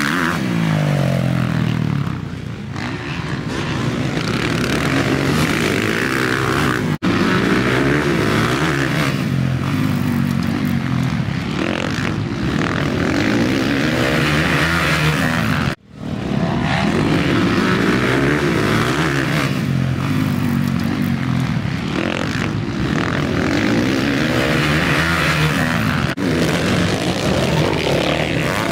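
Motocross bikes' engines revving hard as they ride past on a dirt track, the pitch rising and falling again and again with throttle and gear changes. The sound breaks off briefly twice, about seven and sixteen seconds in.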